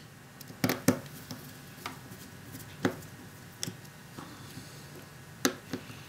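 Small screwdriver and plastic phone casing clicking and tapping while a tiny Torx screw is set into a Nexus One's case: about half a dozen light, separate clicks.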